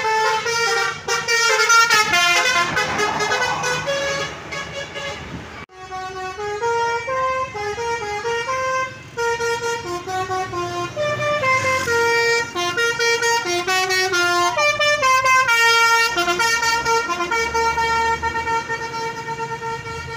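Basuri multi-tone bus horns playing loud melodies of stepped notes, the 'telolet' tune, as tour buses pass. The sound breaks off abruptly about six seconds in and another bus's horn tune starts.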